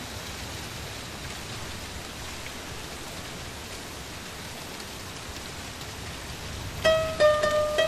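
A steady, even hiss like falling rain. Near the end, a plucked-string melody comes in with separate, sharply struck notes.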